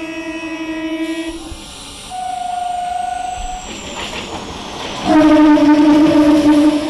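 Electric local (EMU) train sounding its horn as it approaches and runs through the station: a long blast that ends about a second and a half in, a shorter higher note a little later, then the loudest, long blast from about five seconds in as the coaches roll past with clattering wheels.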